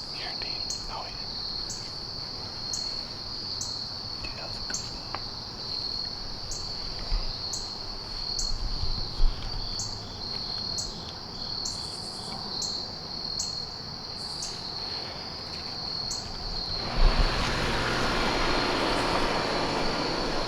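Insects, crickets among them, trilling steadily in the evening, with a regular chirp a little over once a second. A couple of brief low thumps occur, and about seventeen seconds in a steady rushing noise like a passing vehicle comes in beneath the insects.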